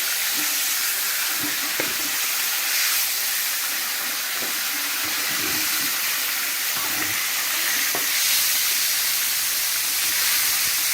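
Chicken pieces sizzling in hot oil, a steady frying hiss as they are fried to half-cooked.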